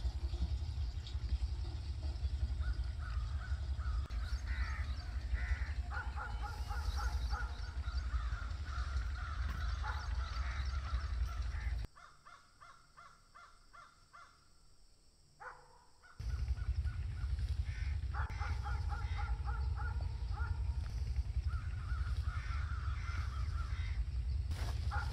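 Crows cawing repeatedly over a steady low rumble. Both drop away for a few seconds about halfway through, then return.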